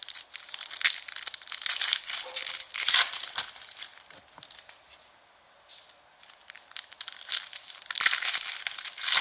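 Plastic wrapping on a box of Donruss Optic Basketball trading cards being crinkled and torn open, in two spells of crackling with a short pause between them.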